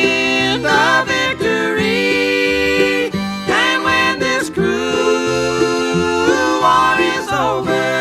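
Recorded bluegrass band music: plucked banjo and guitar under a lead melody line with held notes and slides.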